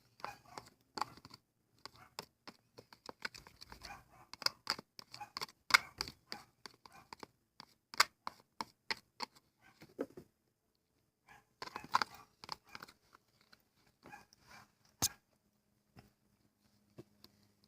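Slime being played with: a quick, irregular run of small sticky clicks and pops, with a short lull about ten seconds in and fewer clicks toward the end.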